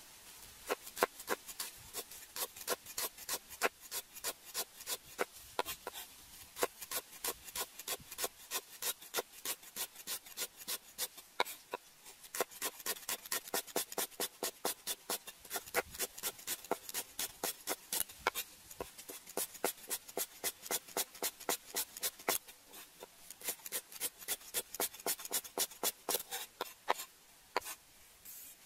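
A cleaver slicing lemongrass stalks into thin rings on a wooden chopping block: quick, even chops, about three or four a second, with a short pause near the end.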